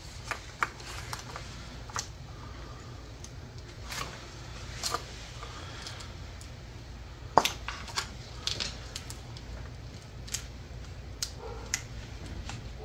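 Scattered sharp clicks and light plastic knocks as gloved hands unclip and handle wiring connectors on a V6 engine's intake, over a low steady hum.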